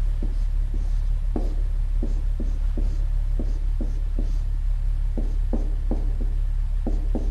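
Steady electrical mains hum, with soft short taps or ticks about two or three times a second over it.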